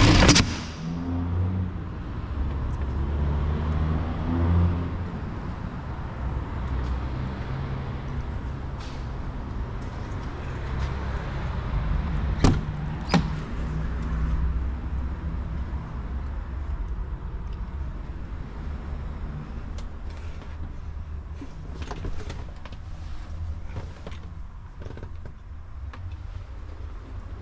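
2021 E-ONE fire engine's diesel engine idling with a steady low rumble and hum. A loud knock comes right at the start and two sharp clicks come about halfway through.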